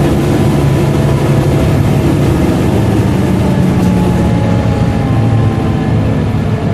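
Volvo B7LA bus (Wright StreetCar) running with a loud, steady drone from its diesel engine and cooling fan. A few higher tones drift slowly lower in the second half.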